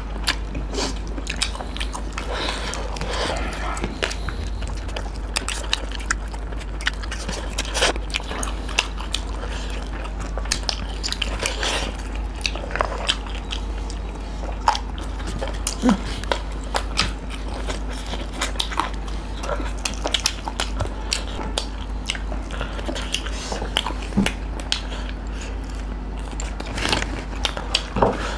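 Close-up eating sounds: biting and chewing fried chicken wings, with many small crunches and clicks scattered throughout. A steady low hum runs underneath.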